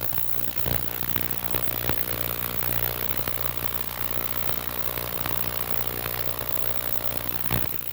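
Ultrasonic cleaner running with a steady buzzing hum while it cleans a blocked carburetor main jet soaking in dish-liquid solution. A single knock comes near the end.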